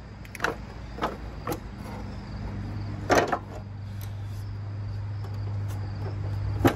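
Metal knocks and clunks as the Jeep 4.0 inline-six's cast-iron cylinder head is lifted out of the engine bay: a few light knocks early on, a louder clunk about three seconds in and a sharp one at the end, over a steady low hum that grows slightly louder.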